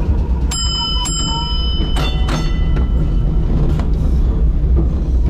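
A tram's gong struck about four times, in two quick pairs within the first two and a half seconds, each strike ringing on briefly. Under it is the tram's steady low running rumble.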